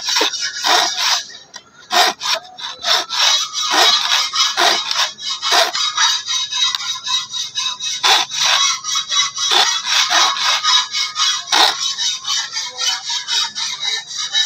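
Hand file rasping back and forth across the teeth of a serrated steel blade in quick, repeated strokes, sharpening or cutting the teeth, with a short break about a second and a half in.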